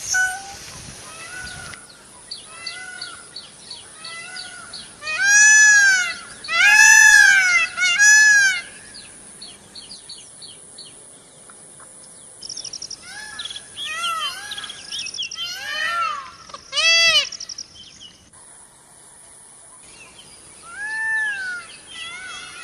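Indian peafowl calling: a series of high, wailing calls, each rising and then falling in pitch. Three loud calls in a row come about five to eight seconds in, followed by more calls, some fainter, later on.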